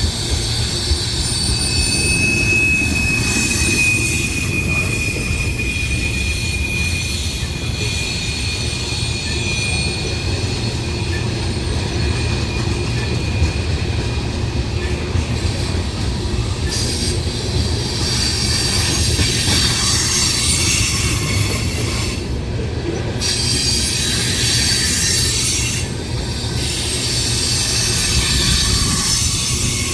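Freight cars of a CSX manifest train rolling past with a steady rumble and wheel noise on the rails. A thin, high wheel squeal rises over it from about two seconds in and fades out around ten seconds.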